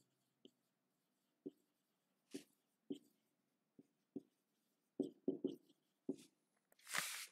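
Marker pen writing on a whiteboard: faint, scattered short taps and strokes of the felt tip on the board, with a slightly longer, louder stroke near the end.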